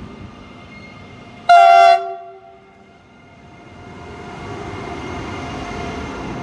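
Commuter train horn gives one short, very loud blast about a second and a half in, with a lower note lingering for about a second after it. The train's running rumble grows louder toward the end.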